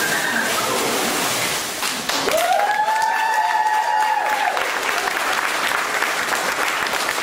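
A crowd clapping steadily, with one long rising whoop of cheering from about two seconds in.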